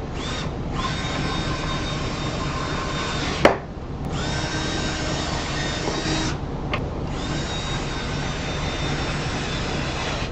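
Cordless drill/driver running in three bursts of a few seconds each, driving wood screws, its motor whine settling to a steady pitch in each run. A single sharp knock comes between the first and second runs.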